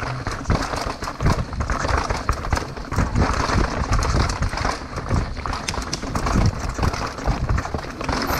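Downhill mountain bike ridden fast over a rough dirt trail: tyres on dirt and a constant clatter of knocks and rattles from the bike, with wind noise on the microphone.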